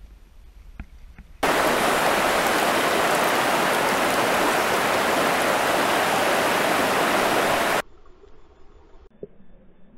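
Fast river riffle rushing, a loud, steady, even hiss of water that starts abruptly about a second and a half in and cuts off sharply near the end, leaving only faint, muffled sound.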